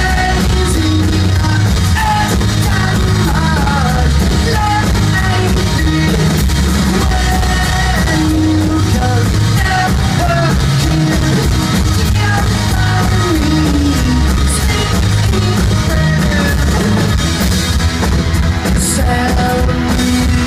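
Live rock band of electric guitar, bass guitar and drum kit playing loudly, heard from within the audience.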